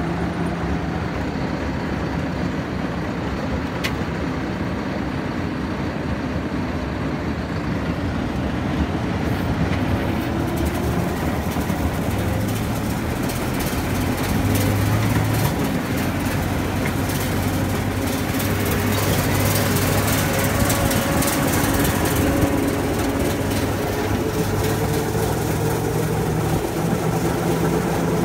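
Landini Vision 105 tractor's diesel engine running steadily while towing an İrtem 1200 fertilizer spreader. A rattling clatter joins about ten seconds in and carries on over the engine.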